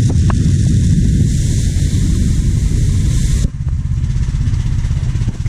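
Pressure washer running, with the hiss of the water jet on top of a steady, pulsing machine sound. The hiss cuts off suddenly about three and a half seconds in while the machine keeps running.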